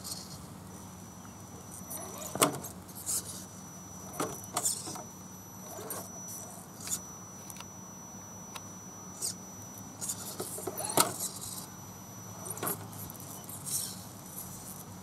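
A 1/10-scale RC crawler truck's electric drive whines at low speed as it climbs over rocks. A thin, steady high whine cuts in and out, over a low hum, with scattered sharp clacks and rattles of the tyres and chassis against the stones.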